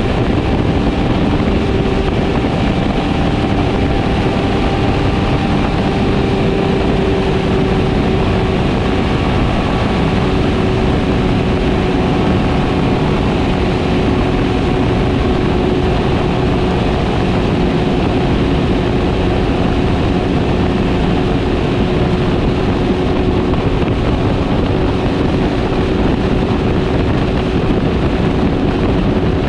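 Motorcycle cruising at steady highway speed: a constant engine note that holds its pitch, under heavy wind and road rush.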